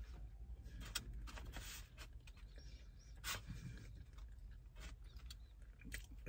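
Faint chewing of fried pickles, with a few short clicks and mouth smacks, over a steady low hum in a car cabin.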